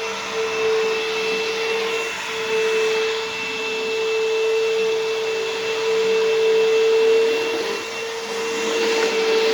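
Bissell CleanView Helix bagless vacuum running steadily on carpet: a level motor hum with a thin high whine above it, swelling and easing slightly in loudness.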